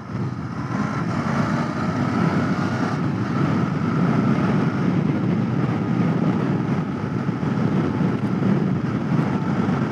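Royal Enfield Continental GT 650's parallel-twin engine running steadily as the motorcycle is ridden along.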